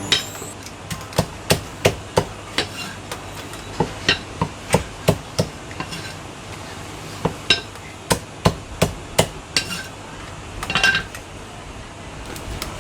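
Cleaver chopping roast meat on a chopping block: sharp chops in quick runs of two to five, with pauses between, and a short burst of noise near the end.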